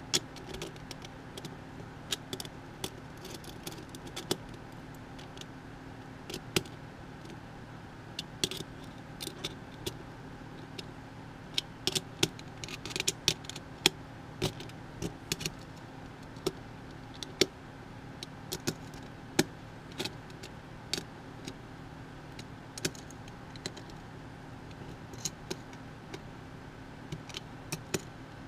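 Irregular small metallic clicks and clinks as a hex nut driver fits and tightens the hex nuts on Thonkiconn jacks in a Eurorack module panel, busiest in the middle, over a steady low background hum.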